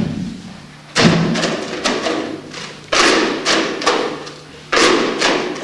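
Stacks of flowerpots being slammed and clacked in a stacking routine: sharp, loud knocks in quick groups of two or three, about a second apart, each ringing on briefly.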